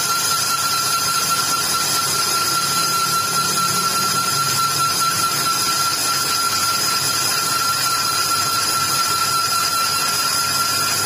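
Lathe spinning a motorcycle wheel hub while a cutting tool resurfaces the inside of its brake drum: steady machine noise with one constant high-pitched whine.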